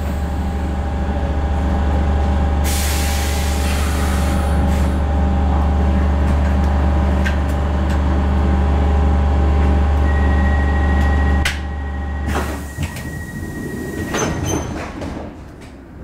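Stockholm Metro C6 train standing at a platform with its onboard machinery humming steadily, and a hiss of air released about three seconds in. About ten seconds in a high steady warning tone starts, the hum cuts out, and the sliding doors knock shut.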